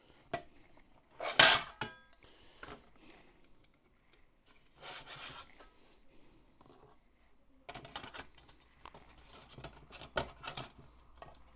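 Thin sheet-metal equipment bin and its hinged lid being handled and fitted together on a bench: scattered metallic clinks, knocks and light scrapes, the loudest knock about a second and a half in with a brief ring.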